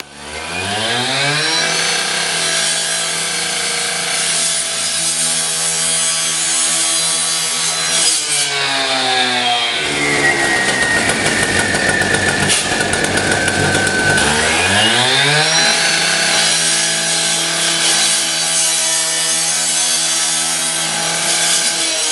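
Two-stroke firefighter's power saw revving up and running at full speed. About eight seconds in the engine pitch drops and gives way to a grinding noise as the blade cuts into the garage door's sheet-metal skin. Around fifteen seconds it revs back up and runs at speed again.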